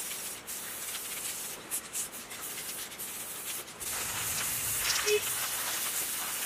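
Aerosol spray-paint cans hissing, in short bursts with brief pauses at first. From about four seconds in the spray runs louder and unbroken.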